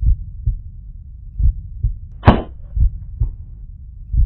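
A heartbeat sound effect: slow, low double thumps, a pair about every second and a half, with one sharper, louder hit about two seconds in.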